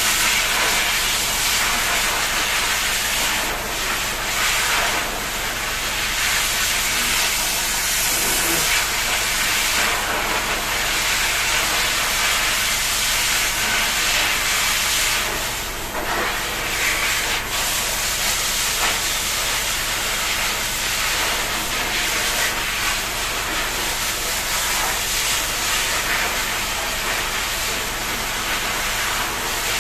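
Shower water spraying steadily with a continuous hiss.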